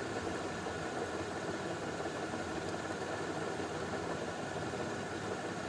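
Steady background hiss and low hum of room noise picked up by the microphone, with a couple of faint clicks about one second and nearly three seconds in.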